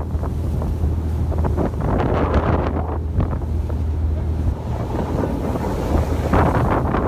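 Wind buffeting the microphone over a boat engine's steady low drone, with rushing and splashing sea water.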